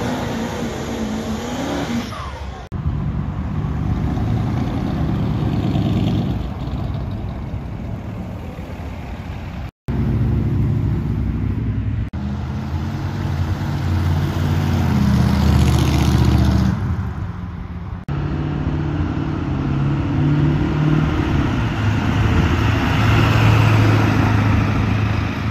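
Pickup truck engines running hard under load while pulling a weight-transfer sled, in several short clips that cut off abruptly.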